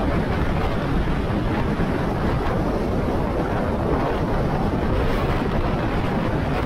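Steady wind rushing over the microphone of a motorcycle riding at speed, with the bike's engine and road noise underneath.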